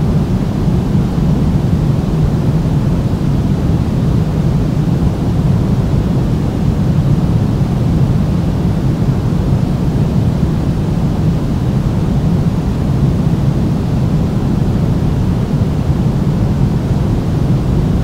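Steady synthetic pink noise: an unbroken, even hiss weighted toward the low end, with no change in level.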